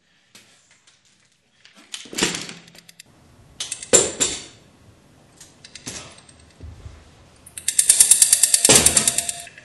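Sharp percussive crashes with a bright metallic ring, a couple of seconds apart, then a dense, fast rattle of cymbal-like hits near the end.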